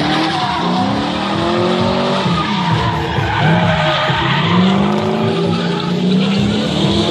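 Nissan Skyline drift car's 6.2-litre Corvette V8 revving up and falling back again and again as it drifts, with the rear tyres skidding and screeching.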